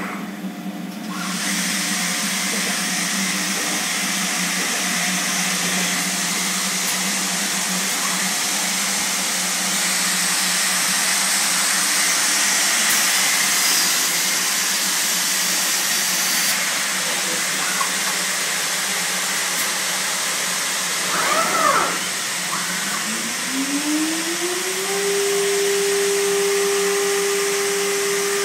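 Weeke BMP 195 CNC woodworking machining centre running, a steady hiss and hum with a louder hiss for a few seconds midway. About three-quarters through, a motor winds up with a rising whine that levels off into a steady hum.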